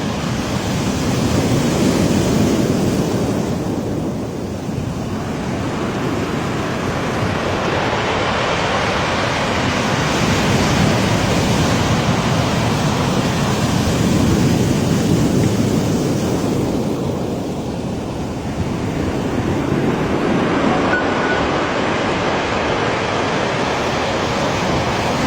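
Sea waves washing up a pebble beach and draining back, the retreating water rolling and rattling the pebbles. The surf swells and ebbs slowly, easing off twice.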